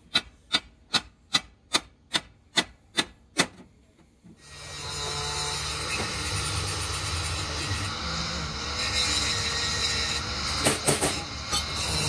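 Hand hammer striking a perforated stainless steel sheet, about nine sharp blows at a steady two or three a second, stopping about three and a half seconds in. A steady low hum with noise then sets in, with a few knocks near the end.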